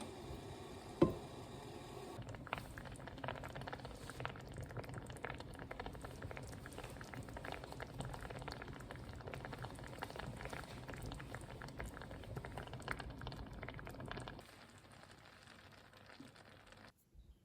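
Food bubbling in a pan, a steady simmer with many small pops. A single sharp knock comes about a second in, and the bubbling drops away near the end.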